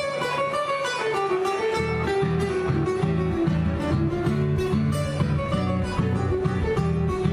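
Two classical guitars playing an instrumental duet in the gaúcho regional style: a plucked melody over a rhythmic bass line.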